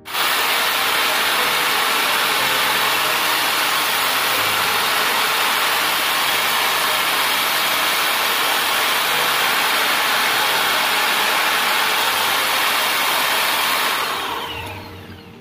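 Electric drill in a drill-press stand running at speed, spinning a steel part in its chuck against a hand-held tool, a steady harsh grinding hiss used in place of a lathe. It starts suddenly and, near the end, the motor is switched off and spins down.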